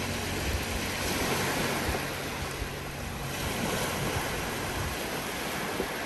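Sea surf washing on the shore, one wave swelling about a second in and easing off around three seconds.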